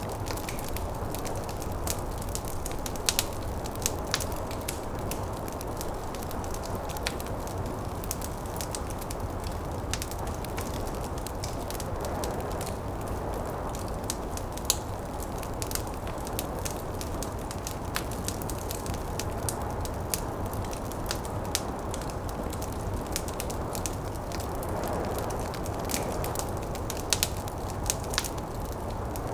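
Wood fire burning in a fireplace, crackling and popping irregularly over a steady low rumble of snowstorm wind.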